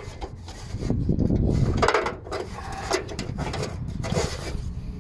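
Irregular scraping and knocking of metal as a bolt is worked as a lever against an exhaust bracket under the car to free it.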